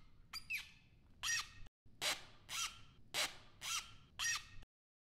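Cartoon sound effect: a run of short, high squeaky chirps, about two a second, each sliding in pitch. The sound cuts off abruptly shortly before the end.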